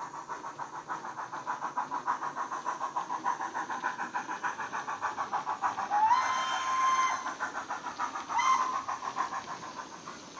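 Model steam locomotive sound from a LokSound 5 micro DCC decoder through a small sugarcube speaker in a Model Rail USA tank: rapid, even exhaust chuffs, with a whistle about six seconds in that swoops up into one long blast and a short second blast a couple of seconds later.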